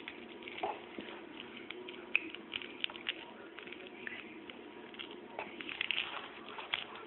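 Irregular light taps and clicks, several a second at times, as a baby plays with a plastic baby walker.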